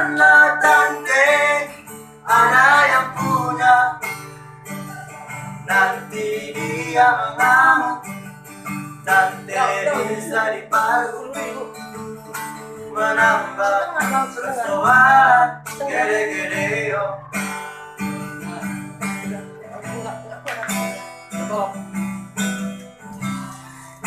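A male voice singing over a strummed acoustic guitar. The singing stops about three quarters of the way through and the guitar carries on strumming alone.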